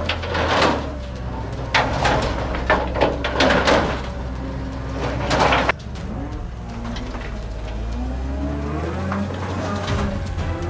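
Heavy earthmoving machine running with a steady low engine hum whose pitch rises and falls, with several loud clattering knocks in the first half, over background music.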